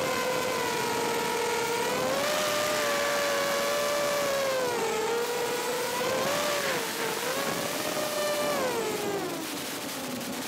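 Electric motors of an FPV drone whining steadily, the pitch gliding up and down as the throttle changes. Near the end the pitch drops well down as the throttle is cut, then climbs sharply as power comes back.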